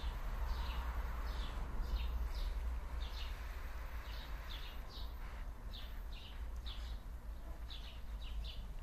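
A small bird chirping repeatedly, short high chirps about two a second, over a low steady rumble.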